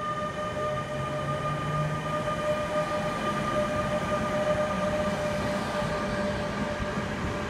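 NS class 186 TRAXX electric locomotive pulling its intercity coaches past at low speed. A steady multi-tone whine from the locomotive fades as it goes by, while a lower hum climbs in pitch as the train picks up speed, over the rumble of the wheels on the track.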